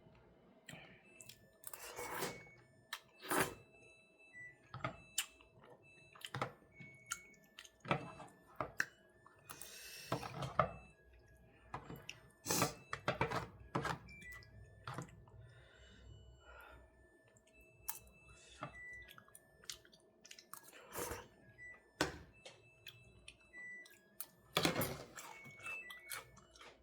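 Someone eating braised chicken (jjimdak): chewing, with many scattered sharp clicks and knocks.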